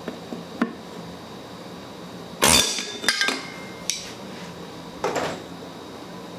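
Pneumatic air hammer fired in short bursts against the crankshaft end to shock the flywheel loose from its taper: a loud burst about two and a half seconds in and a shorter one near five seconds. Between the bursts come light metallic clinks and a ringing clank of steel tools on the engine.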